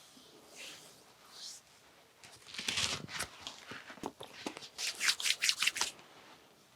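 Hands rubbing and sliding over bare skin in a back massage: soft swishes at first, a louder rubbing spell a little over two seconds in, then a quick run of brisk strokes near the end.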